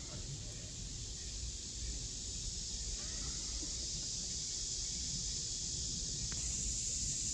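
Steady high-pitched drone of insects in the surrounding woods, growing brighter near the end, over a low rumble.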